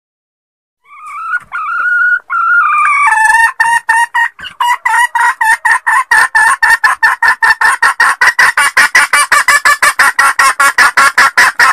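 Red junglefowl hen cackling. It starts about a second in with a few drawn-out notes, then breaks into a fast, even series of about five clucks a second. This is the hen call used as a lure to draw in junglefowl cocks and hens.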